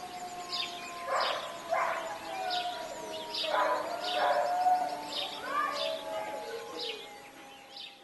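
The wine cooperative's siren winding down, its tones sliding slowly lower and fading out, while birds sing over it with repeated short chirps and a few louder warbled calls.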